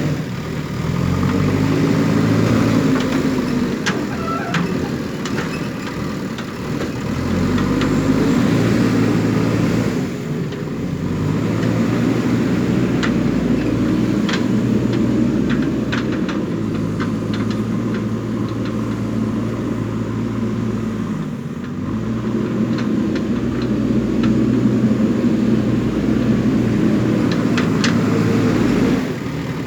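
JCB backhoe loader's diesel engine working, revving up and settling back in repeated cycles as it digs and loads, with occasional sharp knocks.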